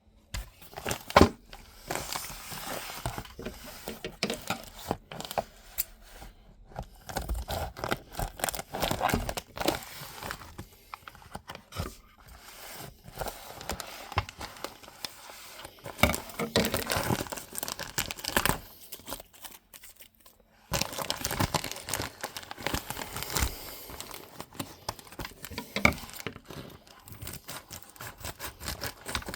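Packing material being handled, with irregular crinkling, rustling and tearing and many small sharp clicks and knocks as a boxed fire alarm pull station is unwrapped. The sound drops away briefly about twenty seconds in, then resumes.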